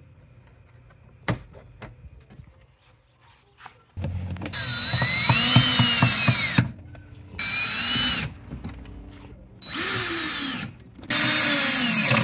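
A sharp click about a second in, then a DeWalt 20V cordless drill/driver turning a fastener with a socket bit in four runs of one to three seconds each, its motor speed rising and falling within each run.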